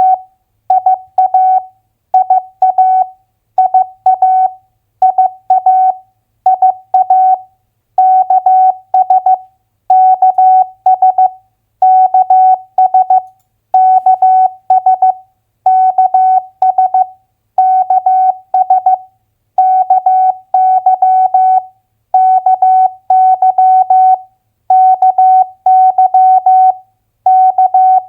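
Morse code (CW) practice tone: a single steady-pitched beep keyed into dots and dashes at 15 words per minute, sending two-letter US state abbreviations in short groups with brief pauses between them.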